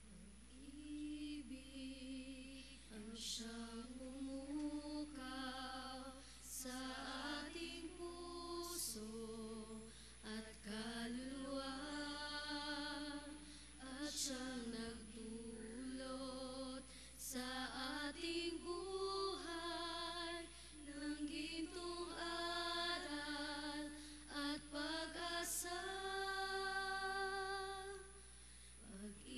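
Communion hymn sung in slow phrases of held notes, with short breaks between lines.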